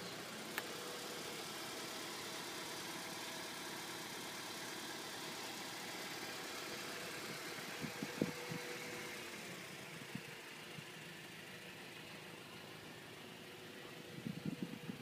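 2000 Integra Type R's 1.8-litre four-cylinder engine idling steadily, with a few light knocks about eight seconds in and again near the end.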